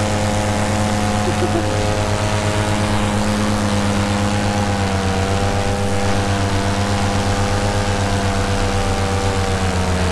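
Paramotor's two-stroke engine and propeller running steadily in flight, a loud, rattly drone with a fast even pulse; the pitch sags slightly about halfway through and then holds.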